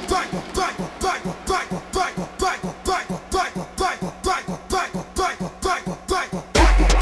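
Instrumental baile funk-style electronic track: a quick, even pattern of short percussive hits repeats throughout. Near the end a deep, sustained bass comes in and the music gets clearly louder.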